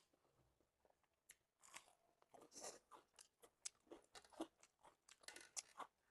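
A person chewing food close to the microphone, with quiet, irregular crisp crunches and wet chewing sounds.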